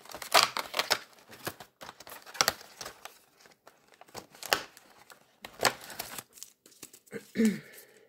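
Cardboard advent-calendar door and the foil wrapper of a Panini Premier League trading-card pack crinkling and tearing as they are handled, a run of short irregular crackles.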